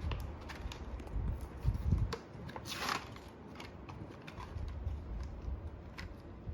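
A toy-car blister package being opened by hand: scattered plastic and cardboard clicks and crinkles, with a short rustle about three seconds in.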